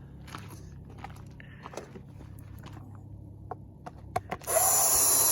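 Scattered light clicks and knocks of parts being handled, then about four and a half seconds in a loud, steady spray hiss starts abruptly.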